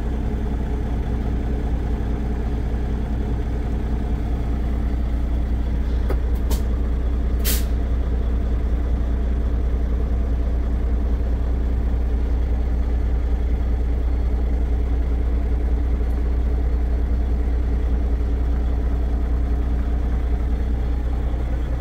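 A 2022 Peterbilt 389's Cummins X15 diesel idling steadily, heard from inside the cab. Two brief high, sharp sounds come about six and a half and seven and a half seconds in.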